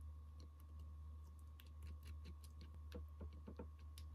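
Faint, irregular light clicks and taps, several a second in places, over a low steady hum.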